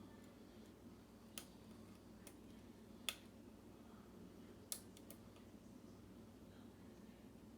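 Faint, scattered clicks of hook picks working the pins of a Schlage pin-tumbler lock cylinder as it is picked. There are about five sharp ticks, spread unevenly, over a low steady room hum.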